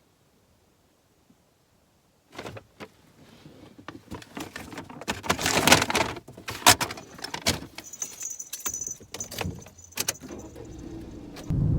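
Keys jangling and clicking, handled in short rattles for several seconds after a silent start. Near the end a steady low car rumble begins suddenly.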